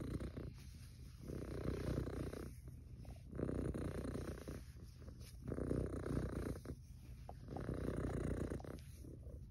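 Domestic cat purring steadily at close range, the rumble swelling and easing with each breath about every two seconds.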